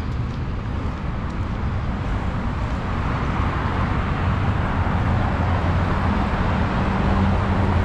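Road traffic on a city street. A motor vehicle's low engine hum grows louder in the second half.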